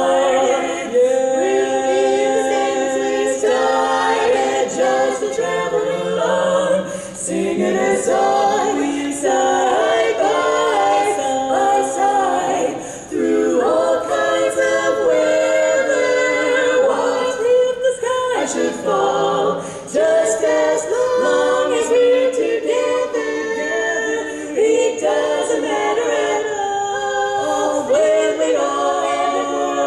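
Female barbershop quartet singing a cappella in four-part close harmony, with sustained chords and moving voice parts.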